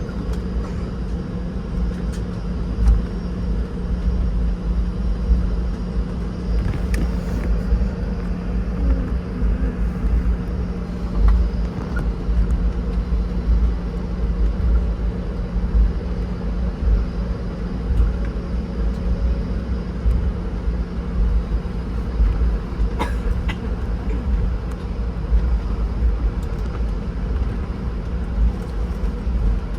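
Cabin noise of a Boeing 717 taxiing: the steady hum of its rear-mounted Rolls-Royce BR715 turbofans at taxi power over a low rumble, with a few brief clicks or rattles.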